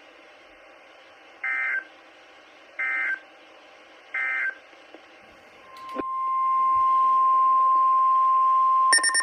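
NOAA Weather Radio EAS data tones: three short warbling end-of-message bursts a second apart. After a click, a steady single weather-radio warning tone near 1 kHz fades up and holds. Near the end a rapid pulsing alarm beep starts over it.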